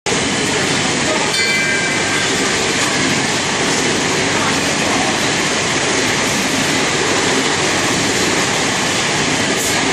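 Powered roller conveyor running with a loaded pallet rolling along it, a steady mechanical noise mixed with constant factory machinery sound.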